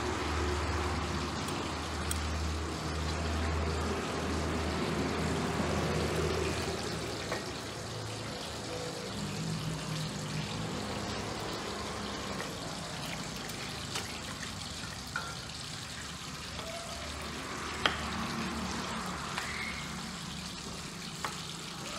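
Steady background hiss with a low hum that fades out about a third of the way in, and a few sharp knocks of a kitchen knife on a wooden chopping board in the second half.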